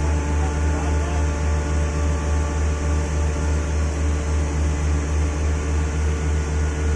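Heavy machinery engine running steadily at constant speed: a loud low hum with a slight even throb and a few steady higher tones over it.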